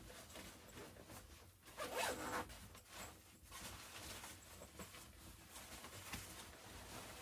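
A zipper being pulled in a series of short strokes, the loudest about two seconds in.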